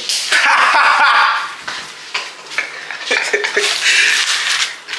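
People's voices in playful banter, with a loud high-pitched vocal outburst in the first second and short vocal sounds around three to four seconds in.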